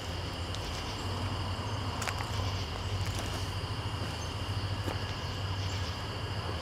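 Insects trilling steadily in two high, unbroken tones over a steady low rumble, with a few faint clicks.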